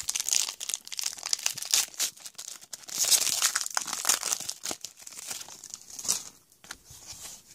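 Foil trading-card pack wrapper being torn open and crinkled by hand: a dense run of crackling that thins out and gets quieter near the end.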